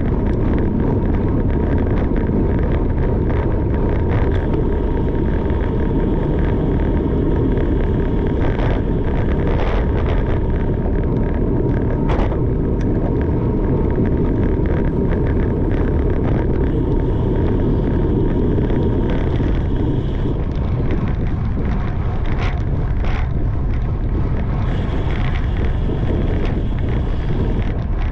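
Wind rushing over the microphone of a camera on a bicycle being ridden, a loud, steady rumble with a few brief clicks.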